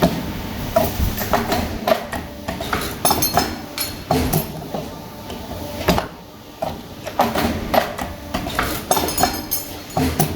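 Automatic steel wire bending machine at work: a busy run of sharp metallic clicks and clanks over a steady mechanical running noise, easing briefly about six seconds in.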